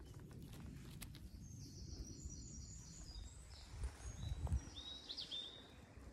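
A small songbird singing a run of high, thin notes and short trills over a steady low rumble, with two dull thuds about four seconds in.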